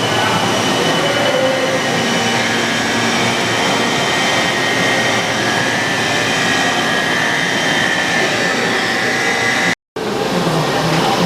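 Daewoo Puma 500 CNC lathe running: a loud, steady machine noise with a high, thin whine, broken by a short dropout about ten seconds in.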